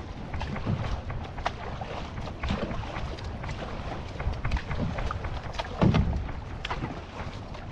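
Water splashing and sloshing around an outrigger canoe (va'a) under way, with wind buffeting the action-camera microphone as a low rumble. There is a louder splash about six seconds in.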